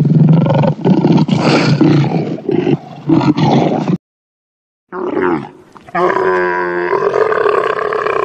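Lion growling and roaring for about four seconds, then cutting off abruptly. After a second of silence, a dromedary camel makes a long, low, groaning call.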